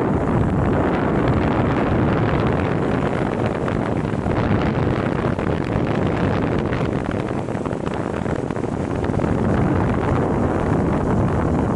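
Mountain bike riding a trail: steady wind buffeting the on-bike camera's microphone over tyre rumble, with constant small rattles and knocks from the bike.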